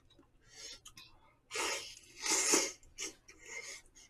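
Slurping jjamppong noodles: two loud slurps, about a second and a half in and again just after two seconds, with softer slurps around them.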